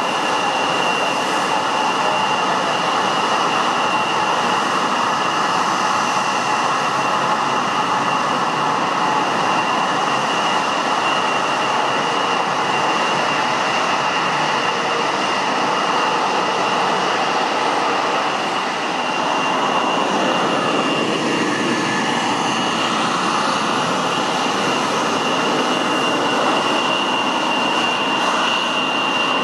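Turbofan engines of an Embraer 170 regional jet running steadily at low power: a broad rush with a steady high-pitched whine.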